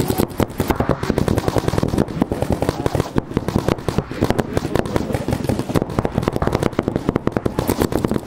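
Paintball markers firing rapid strings of shots, many guns at once, so the pops overlap into a continuous crackle with no pause.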